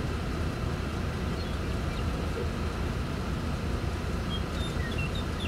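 Steady low rumble of wind on the microphone ahead of a storm's rear-flank downdraft, with a few faint short chirps about four to five seconds in.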